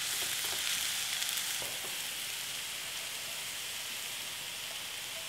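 Minced chicken, diced carrot and onion sizzling steadily in a frying pan, stirred with a silicone spatula that scrapes lightly a couple of times in the first two seconds.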